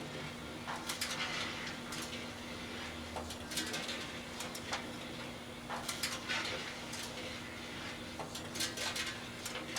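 Microwave ovens running with a steady hum while the Christmas lights inside crackle and snap with electrical arcing, in irregular clusters of sharp pops.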